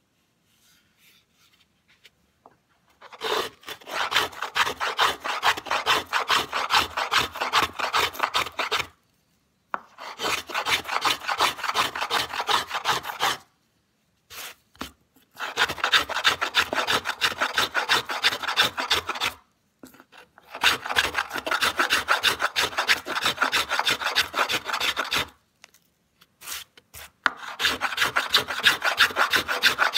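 Small boxwood luthier's plane shaving a wooden board in rapid short strokes, a fast run of scraping cuts. It comes in five bursts of a few seconds each, with brief pauses between them.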